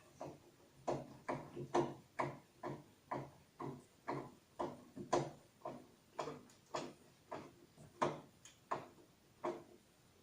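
A screw being turned into the TV's back cover with a hand screwdriver: a run of short clicks, two or three a second, irregularly spaced.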